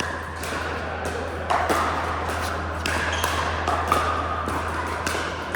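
Pickleball paddles hitting the hard plastic ball, with sharp pops coming at irregular intervals, over a steady low hum.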